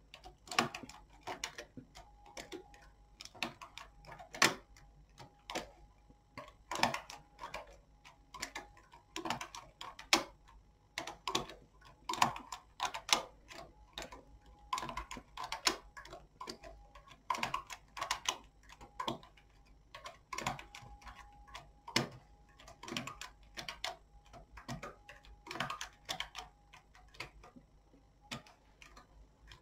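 Irregular light clicks and ticks from the needles of a domestic knitting machine as stitches are moved by hand so there is one stitch per needle, leaving empty needles to form an eyelet row.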